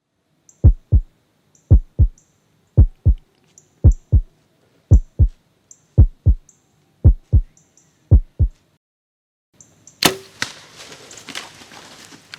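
A heartbeat sound effect: eight deep double thumps, about one a second. About ten seconds in, a single sharp crack is followed by about two seconds of rattling noise.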